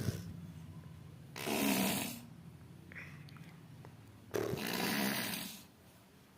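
Baby blowing wet raspberries through his lips, two spluttery, raspy bursts, the first about a second and a half in and the second, a little longer, about four and a half seconds in, with drool spraying.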